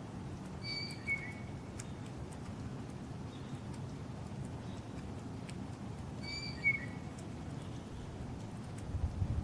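A short, high whistled bird-like call, a held note followed by a brief falling note, heard twice about five and a half seconds apart over a steady low rumble.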